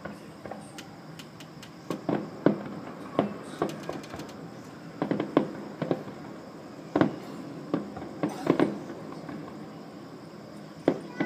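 Distant fireworks bursting: about a dozen sharp bangs at irregular intervals, some coming in quick clusters of two or three.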